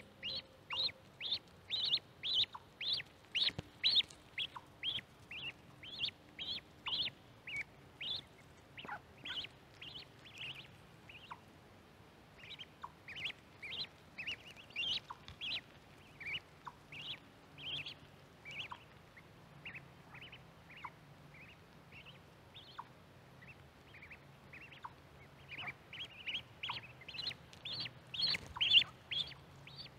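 Mallard ducklings peeping: short, high, falling peeps, several a second, thinning out in the middle and picking up again near the end.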